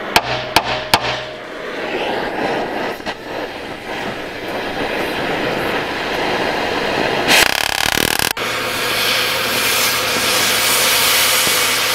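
Oxy-fuel cutting torch hissing steadily as it cuts through rusted spindle bolts on a mower deck, after a few sharp knocks in the first second. The sound shifts abruptly about eight seconds in.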